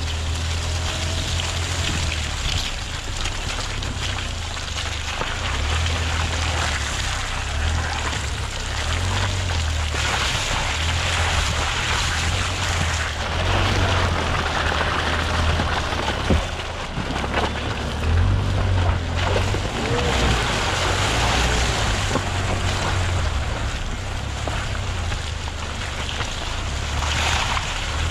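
Land Rover Freelander 2 driving through wet mud: a steady low engine drone under the noise of the tyres squelching and splashing through mud and puddles, with wind buffeting a microphone mounted outside by the wheel and a few knocks along the way.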